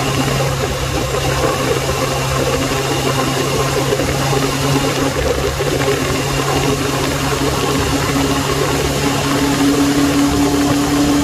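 Suzuki Bandit 600 inline-four engine running steadily while riding, mixed with wind rushing over the hand-held phone's microphone. The engine note creeps up slightly near the end.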